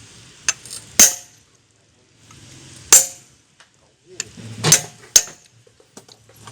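Steel tools and parts clinking and knocking against each other during mechanical repair work: a handful of sharp metallic strikes a second or two apart, with the loudest about a second in, near the middle and twice close together later on.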